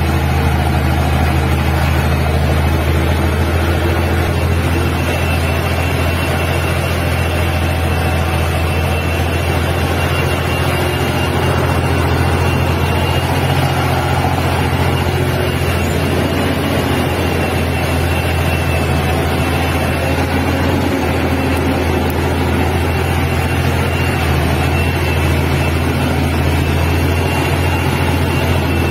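Steady drone of heavy diesel engines under load: an eight-wheeled articulated tractor towing a truck through deep mud, with the truck's engine close by. A thin, high, steady whine runs through it.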